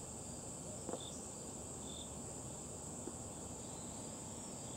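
Insects trilling in a steady high-pitched chorus, with two short, lower chirps about one and two seconds in.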